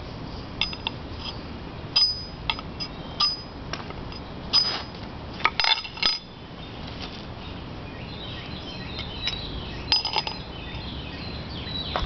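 A ferro rod struck with a steel hatchet: a series of sharp, metallic scrapes and clinks with a ringing edge, stopping about six seconds in once the tinder catches. After that, birds chirp in quick repeated calls in the background.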